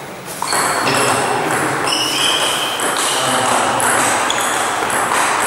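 Table tennis rally: a celluloid ball clicking off bats and the table about three times a second, in a reverberant gym hall, over a steady murmur of voices.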